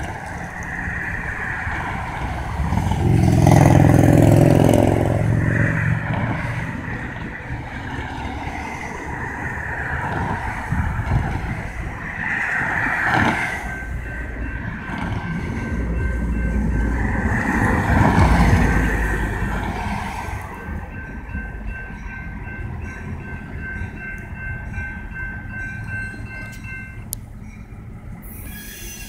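Cars pass over a grade crossing, with two loud swells about four and eighteen seconds in, as a GP38-2 diesel locomotive approaches and rumbles up to the crossing. Through the second half a thin, steady high tone sounds.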